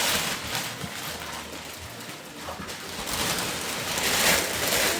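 Gift wrap and packaging rustling and crackling as presents are unwrapped and handled, in uneven bursts that swell about four seconds in.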